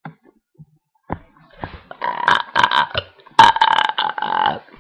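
A person burping on purpose: two long, rough burps, the first about two seconds in and a second, louder one about a second later.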